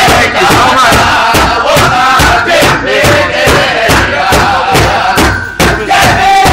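Powwow drum group: a drum struck in a fast, steady beat by the drummers together, with high-pitched chanted singing over it. Drum and voices stop for a moment about five and a half seconds in, then carry on.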